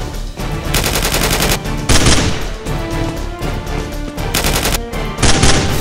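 Four bursts of rapid automatic gunfire sound effects over action background music.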